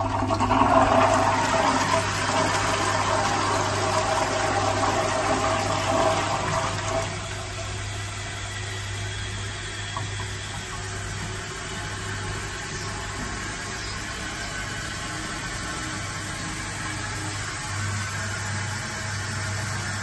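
The end of a toilet flush from a high-level ceramic cistern with a Dudley Turbo siphon: water rushes into the fireclay pan and dies down after about seven seconds. The cistern then refills with a quieter, steady hiss of water, over a steady low hum.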